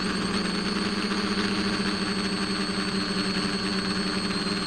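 Electric motor and propeller of an FPV radio-controlled aircraft, heard from its onboard camera, running at a steady pitch with a thin high whine above it.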